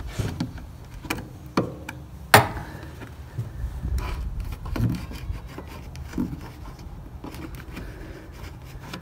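A rubber hood seal being pushed and worked by hand into a Volkswagen Beetle's metal body track, with rubbing and scraping and a few sharp clicks. The loudest click comes about two and a half seconds in.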